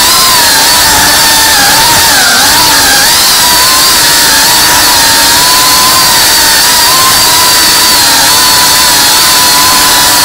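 FPV quadcopter's brushless motors and propellers whining loudly in flight, picked up by the drone's own onboard camera. One steady high whine over a rushing hiss, its pitch wavering up and down as the throttle changes, with a few quicker dips in the first three seconds.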